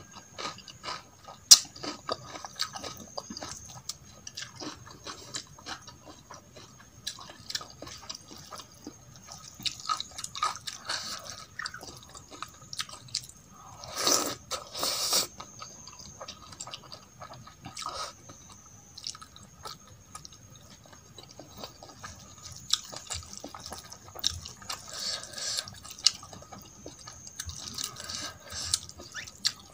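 Close-miked eating of rice and dal by hand: wet chewing and lip smacks, with fingers squishing and mixing rice on a steel plate. Two louder mouthfuls come about fourteen and fifteen seconds in.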